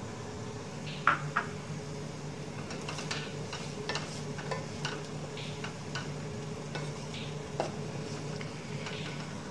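Wooden spatula stirring and scraping chicken curry masala in a hot nonstick pot, with irregular scrapes and taps and a couple of sharper knocks, over a light sizzle as the chicken is fried down with yogurt (bhunai). A steady low hum runs underneath.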